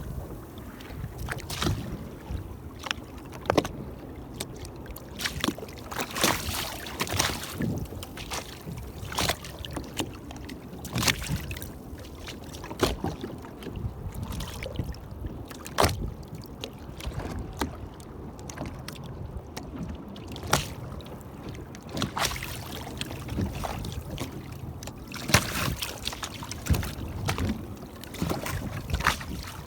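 Small waves slapping against the hull of an anchored boat: irregular sharp slaps over a steady wash of water.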